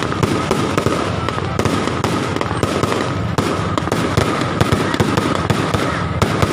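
Fireworks and firecrackers going off without pause: a dense run of sharp cracks and pops, with a steady high whine underneath.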